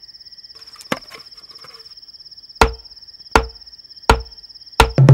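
Single stick strokes on a leather-laced nagara drum: five sharp hits, coming closer together toward the end and breaking into rapid drumming at the very end. Crickets trill steadily behind them.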